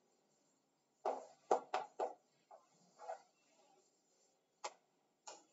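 Chalk tapping and scraping on a blackboard in short strokes as figures are written: a quick cluster of four strokes about a second in, then single ones spread out later.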